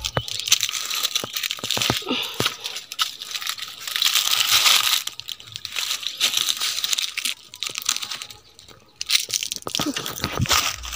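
Rustling, scraping and crunching from clambering up over rocks and tree roots: clothing rubbing against the microphone and dry leaves crunching underfoot, with scattered sharp clicks and a brief lull a little past the middle.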